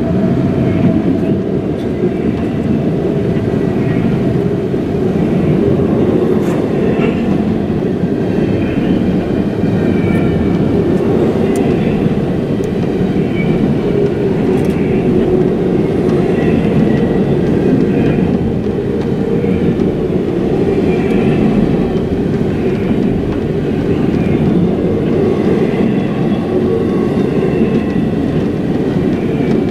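A CSX double-stack intermodal freight train passing close by: a loud, steady rumble of wheels on rail.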